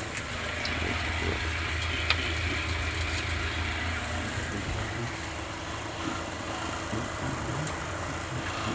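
Electric hand grinder's motor running steadily with a low, even hum and a faint higher whine, with a few sharp clicks.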